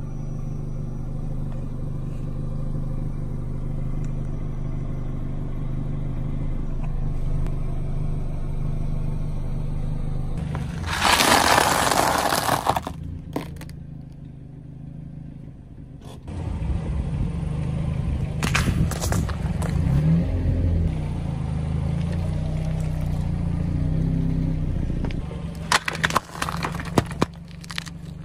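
Car engine running at low speed as the car rolls slowly over objects, with the tyre crushing them: a loud crunching spell about eleven seconds in, and sharp cracks and crackles later on, clustered near the end.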